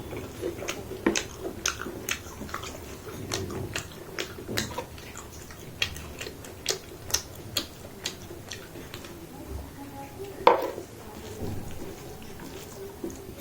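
Dishes and cutlery clicking and clinking at an uneven pace during a meal, with one louder clink about ten and a half seconds in.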